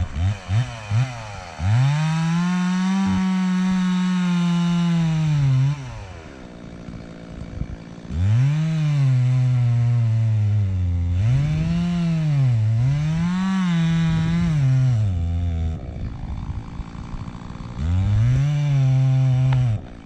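Chainsaw cutting into the trunk of a large dead Douglas fir during felling. A few quick blips of throttle come first. Then the saw runs at full revs through several long cuts, its pitch sagging under load and climbing again, with quieter idling gaps between cuts and a short final burst near the end.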